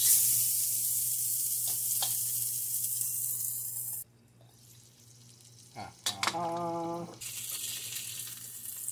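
Beef burger patty sizzling in a hot cast-iron skillet. The sizzle cuts off abruptly about four seconds in. A short steady humming tone comes around six seconds, and the sizzling resumes about a second later.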